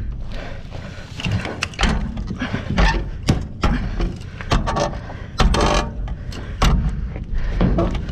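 Irregular knocks, thuds and clatters of junk being shifted and banged about in a dumpster, several impacts a second over a low rumble.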